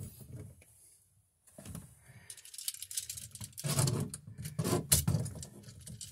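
Handling noise from pliers, a bare copper ground wire and a GFCI receptacle: irregular metallic clicks and rattles, getting busier about halfway through, as the ground wire is straightened and worked onto the receptacle's green ground screw.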